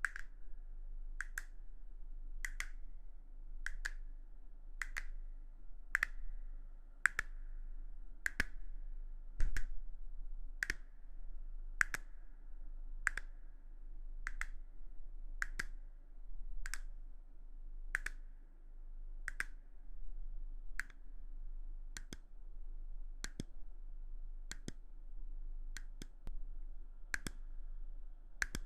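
Sharp, short clicks at an even rhythm, a little under one a second, over a faint steady low hum. One stronger knock comes about a third of the way in.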